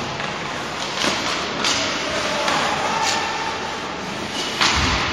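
Ice hockey play in an indoor rink: a few sharp clacks of sticks and puck over a steady hiss of skates and arena noise, with a louder thump near the end.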